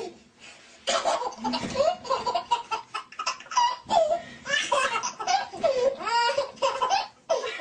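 A baby laughing: a run of high-pitched giggles and squeals in short bursts with brief pauses between them.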